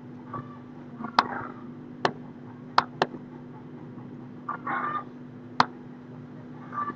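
Five sharp computer-mouse clicks at irregular intervals over a steady low electrical hum, with a brief muffled noise a little past halfway.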